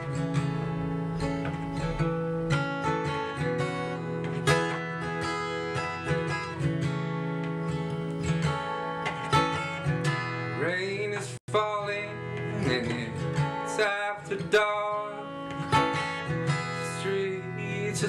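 Acoustic guitar with a capo, strummed in a steady rhythm as a song's intro, with a split-second dropout in the sound a little past halfway.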